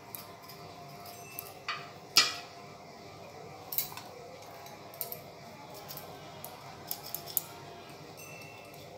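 A kitchen knife clinking and tapping against a stainless steel bowl while seeds are cut out of okra strips, with scattered light clicks and one sharper clink about two seconds in.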